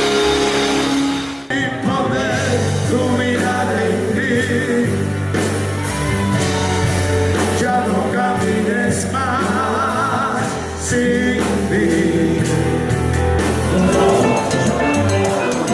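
Worship music: a voice singing with vibrato over a steady bass line. The music changes abruptly about a second and a half in.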